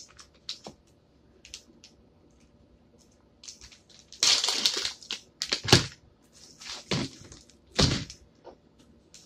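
Plastic deli-meat packaging being handled and peeled open by hand: scattered crinkles and crackles, a louder stretch a little before the middle, then a few sharp cracks.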